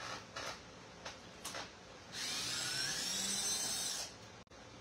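Cordless drill-driver backing a screw out of the door's inner panel: a few short clicks as the bit is set, then the motor whines for about two seconds, its pitch rising a little, before it stops.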